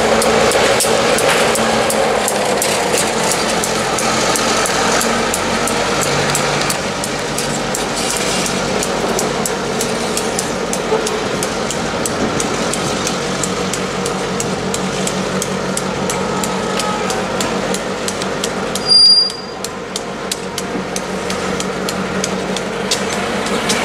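EMD GP9 diesel locomotive running steadily as it hauls passenger cars away, with a rapid, regular clicking of the cars' wheels over the rail joints. About nineteen seconds in, a short, loud high-pitched squeal cuts through.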